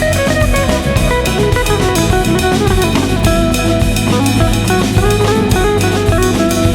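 Background music with guitar and a steady drum-kit beat.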